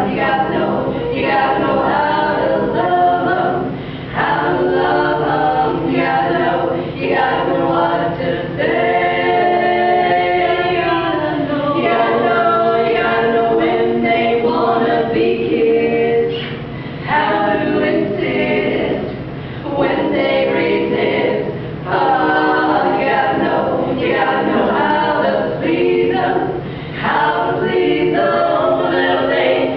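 A cappella vocal group singing a song in several voices with no instruments, in phrases broken by short pauses.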